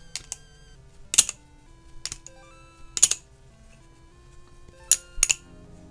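An EX10 balisong's titanium handles and blade clicking against each other as the butterfly knife is flipped close to the microphone: sharp, separate metallic clicks about once a second, with a quick pair near the start and another near the end. Quiet background music plays under them.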